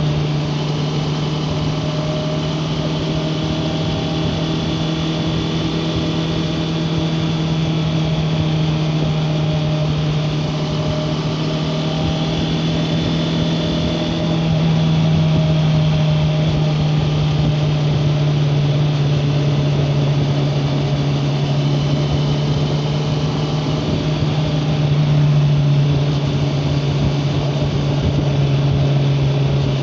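Honda CBR650R's inline-four engine running steadily at cruise under way. About halfway through it grows a little louder and its note rises slightly, with another brief swell a little later.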